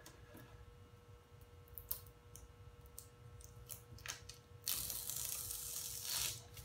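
Light ticking of a fingernail working at the edge of the transfer tape. About three-quarters of the way in, the transfer tape is peeled off the dry-mounted carbon-fibre vinyl graphic with a loud, noisy ripping hiss.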